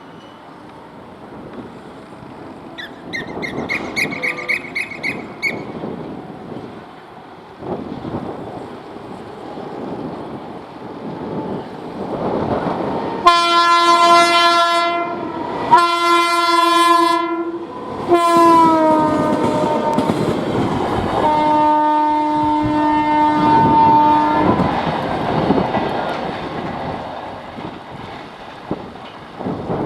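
WAP 7 electric locomotive's air horn sounding two long blasts, then a third that drops in pitch as the engine goes by and a fourth at a lower pitch as it moves away. Underneath runs the rumble and clickety-clack of the locomotive and coach wheels on the rails, louder as the train passes.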